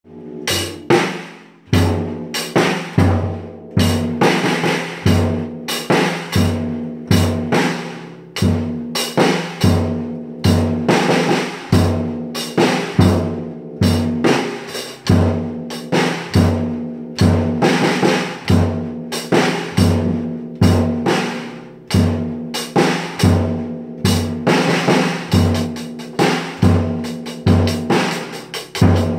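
A beginner drummer playing a drum kit with sticks: a steady, simple beat with a bass drum kick about once a second and snare and tom hits between, with cymbal wash over it.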